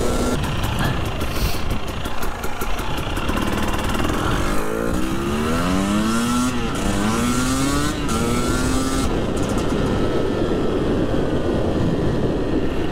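Husqvarna two-stroke motorcycle engine pulling on the road, rising in pitch in about four successive surges through the middle as it accelerates up through the gears, over heavy wind noise on the microphone.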